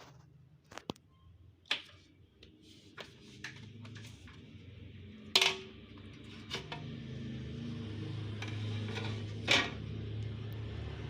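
Light clicks and taps of small tools and parts being handled on a laptop's case during disassembly, with two sharper knocks about five and nine and a half seconds in. A low steady hum sits underneath from about six seconds on.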